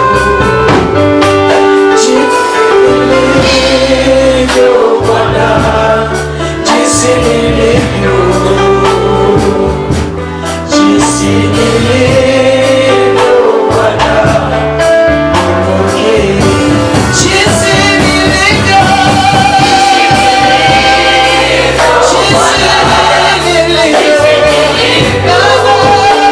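Live gospel worship music: a group of voices singing over instrumental accompaniment with a steady beat and bass, loud throughout.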